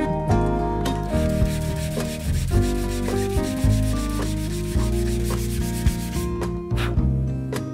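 A hand sanding block rubbing back and forth on the edge of a plywood piece, from about a second in until about six seconds in, over background music.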